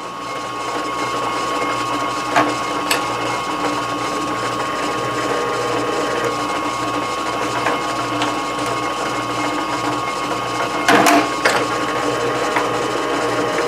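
Metal lathe running with a 5/8-inch twist drill in the tailstock chuck cutting into the spinning workpiece: a steady mechanical whir of the lathe's gears with a constant whine. A few sharp clicks, and a brief louder burst about eleven seconds in.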